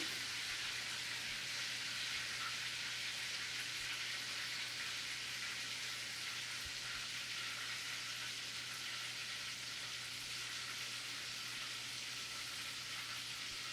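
Cracker-breaded chicken cutlets sizzling steadily in a frying pan, just flipped to their golden-brown side, with a low steady hum underneath.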